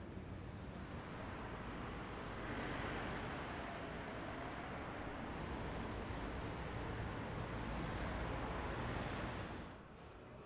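Steady city traffic noise, a wash of cars and engines on a busy street, a little louder from about two seconds in. It drops to a quieter street hum near the end.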